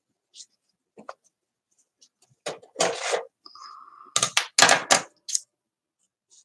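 Hands working craft materials on a paper journal page: a few faint ticks, then a cluster of loud crinkling, rubbing sounds about halfway through, broken by a short squeak. This happens while a crinkled strip is being pressed down into tacky glue.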